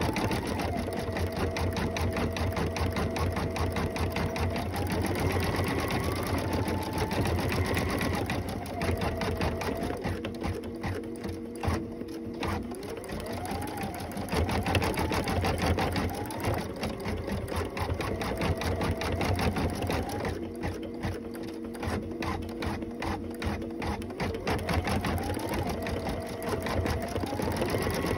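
Computerized embroidery machine stitching at speed: a fast, even needle clatter with a faint motor whine that holds a pitch for a few seconds and then slides up or down to another.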